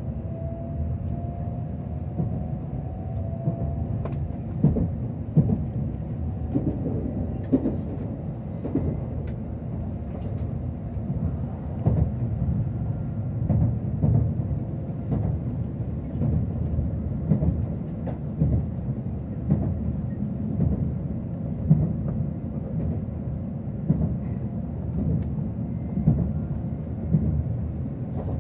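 Tokaido Shinkansen train heard from inside the passenger car while running: a steady low rumble with frequent irregular knocks and thumps, and a faint rising whine in the first couple of seconds.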